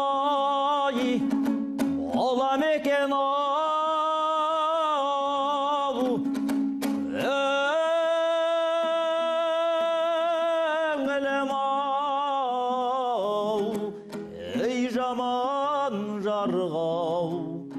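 Kazakh folk song sung in long held notes with a wavering vibrato, broken by short breaks for breath, over a steady lower drone in the accompaniment.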